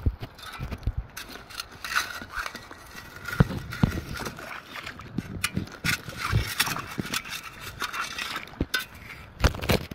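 Perforated stainless steel metal-detecting sand scoop being driven into wet beach sand and gravel, with irregular crunches, scrapes and stones knocking against the steel.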